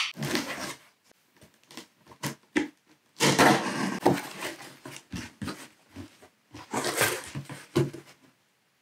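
Packing tape being ripped off a cardboard shipping box and the flaps pulled open: several rasping tears, the longest and loudest about three seconds in, with scrapes and clicks of cardboard between them.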